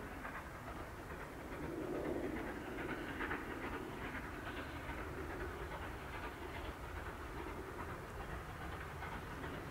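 Distant SECR C class 0-6-0 steam locomotive hauling a train up a climbing grade, its exhaust chuffing steadily under load.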